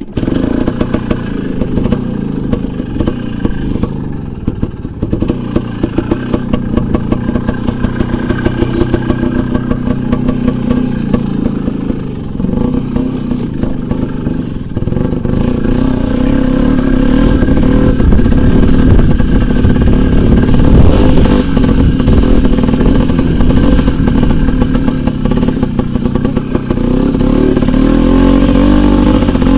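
Motorcycle engine running and revving as the bike pushes through tall grass. It is uneven and choppy in the first half, then runs louder and steadier from about halfway.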